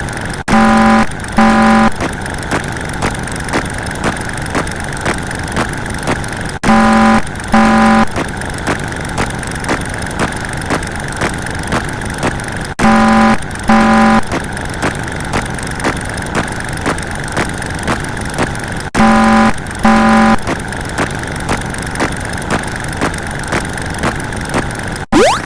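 A sound effect looping about every six seconds, each loop cut off abruptly. Each loop holds a steady engine-like running noise with two short horn-like beeps, about a second apart, near its start.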